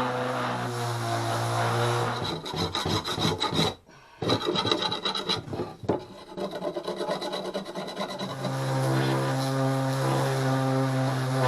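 Power sander working on the cracked aluminium hatch frame to prepare it for welding. The motor runs with a steady hum and grinding rasp, broken in the middle by a stretch of irregular scraping strokes and a brief dropout. The steady running comes back about eight seconds in.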